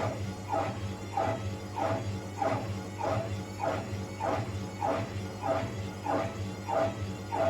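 Indesit Moon SIXL145 washing machine spinning, its rubber door seal squeaking in an even rhythm, about three squeaks every two seconds, over a steady motor hum. The squeak is the sign of the door seal rubbing as the drum turns.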